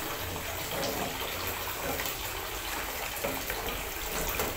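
A plastic ladle stirring a thin, watery jelly mixture in an aluminium saucepan, the liquid swishing and sloshing continuously as it heats toward the boil.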